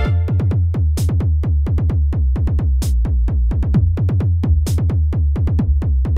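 Background electronic dance music: a fast, steady drum-machine kick beat with heavy bass, and a bright cymbal crash about every two seconds.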